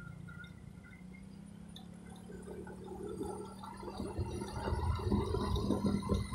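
A vehicle on the move: a steady engine hum under low, rumbling wind buffeting on the microphone, which grows louder and choppier about four seconds in.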